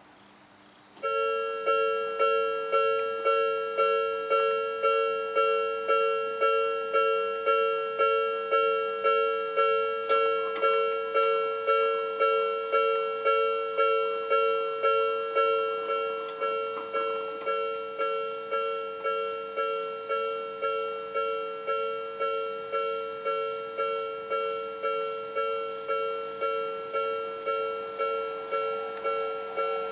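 Japanese railway level-crossing warning alarm ringing its repeated two-tone "kan-kan", starting about a second in at a little under two strikes a second and keeping an even beat, a little quieter after the middle.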